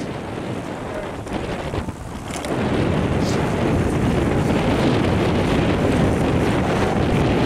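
Wind rushing over the microphone of a camera carried on a moving bicycle, getting louder about three seconds in.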